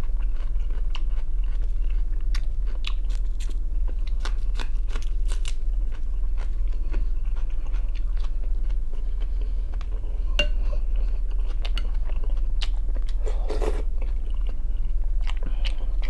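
A person chewing and crunching food close to the microphone, with many small sharp mouth clicks, over a steady low hum.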